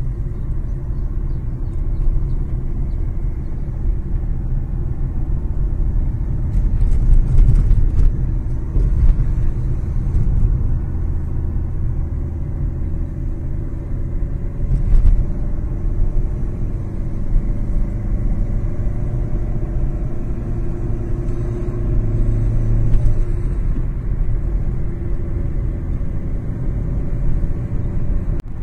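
Car driving along a road, heard from inside the cabin: a steady engine and tyre rumble, with a few short knocks partway through.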